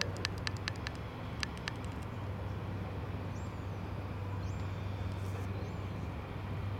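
Colas Class 70 diesel locomotive (V16 engine) droning steadily and low in the distance as it hauls the empty cement train. A quick run of sharp clicks comes in the first second and a half, and a few short high chirps come in the middle.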